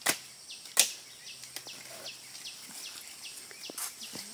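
Two sharp chops within the first second, the second the louder, as a knife hacks at the stalk of a jackfruit hanging on the tree.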